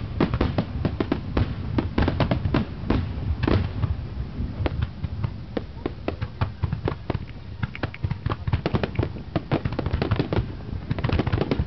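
Aerial fireworks bursting in a rapid, irregular barrage: many sharp bangs one after another over a continuous low rumble, thinning a little in the middle and thickening again near the end.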